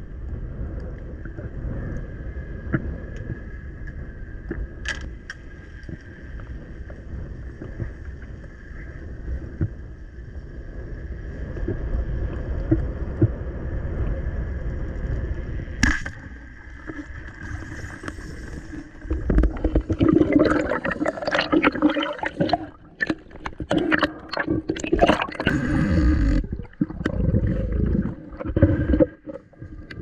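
Underwater, a Koah 120 euro speargun fires with a single sharp crack about halfway through, over a steady hiss and low rumble with a faint steady whine. A few seconds later come loud, irregular rushing and bubbling noises as the speared fish struggles on the line.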